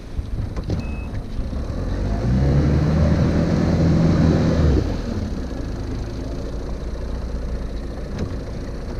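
Evinrude 30 outboard motor running close by. Its engine note swells for about two and a half seconds in the middle, then drops back to a steadier running sound.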